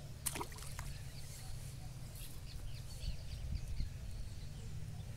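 A small fish splashes into the lake about a third of a second in as it is tossed back, with a few smaller splashes just after. Birds chirp now and then over a steady low rumble.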